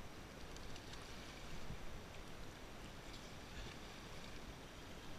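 Faint river water moving and lapping around kayaks, with a light splash about three to four seconds in as a whitewater kayak rolls over.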